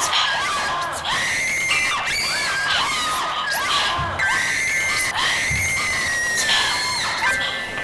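Several young people screaming in fright, overlapping high-pitched screams over and over as they flee.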